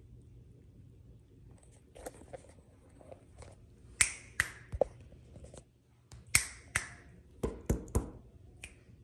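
A run of sharp, short clicks or snaps, about ten of them at irregular intervals, loudest about four seconds in and again around six and a half and eight seconds in.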